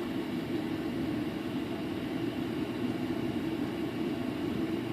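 Steady whirring hum and hiss of a running fan, unchanging throughout.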